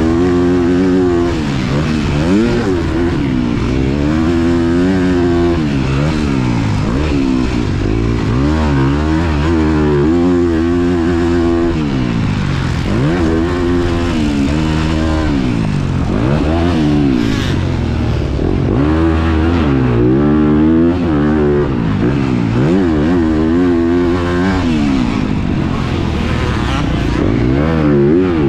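Single-cylinder four-stroke motocross bike, a Honda CRF250R, being ridden hard on a track. The engine revs up and drops back again and again, every second or two, as the throttle is worked.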